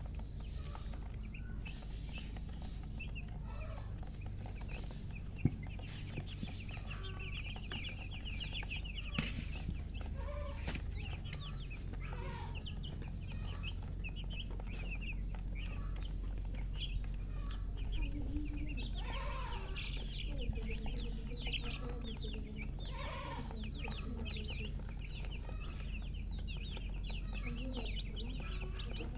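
A group of baby chicks peeping constantly in rapid, high calls, with lower chicken clucks now and then. A single sharp click comes about five seconds in, over a steady low rumble.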